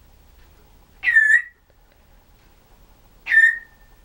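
Timneh African grey parrot giving a whistled call twice, each a quick downward slide that settles into a short held note; the second is held a little longer.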